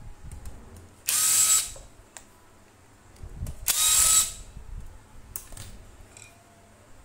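Cordless power driver running in two short bursts, each about half a second, as it backs out the screws holding the standing fan's motor housing together. Quieter clicks of handling come between the bursts.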